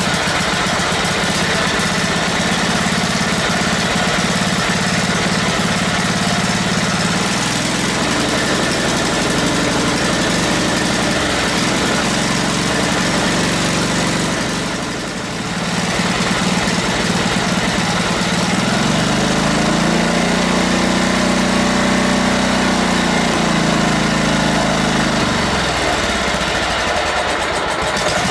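Kohler CV15S single-cylinder engine on a riding mower running just after starting on a newly fitted carburetor. Its speed dips briefly about halfway through, then rises for several seconds and falls back near the end. The owner puts its sputtering run down to the choke not opening fully.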